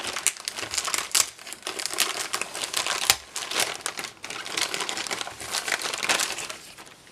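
Clear plastic bag crinkling as hands open it and handle the small pieces inside: a dense run of crackles with a brief lull about four seconds in.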